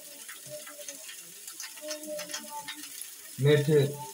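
Tinda and onions frying in a kadhai with a low sizzle, with light clicks of a spoon as turmeric is spooned in. A man's voice sounds briefly about three and a half seconds in.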